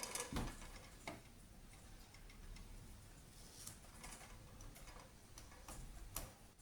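Elna TSP sewing machine turned slowly by hand at the handwheel, its needle and hook mechanism giving faint scattered clicks, with a louder knock just after the start.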